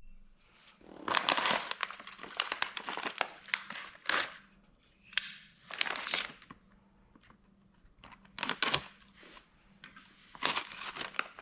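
Loose metal nuts, bolts and washers being handled and sorted by hand: irregular clinking and rattling in bursts with short pauses, along with some rustling.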